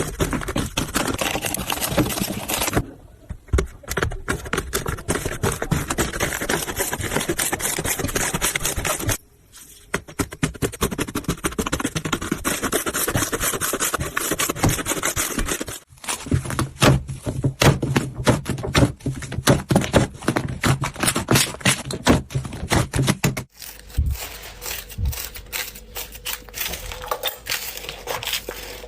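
Slime being squished, pressed and poked by hand, making dense crackling, clicking and squelching sounds in several separate takes that cut off abruptly.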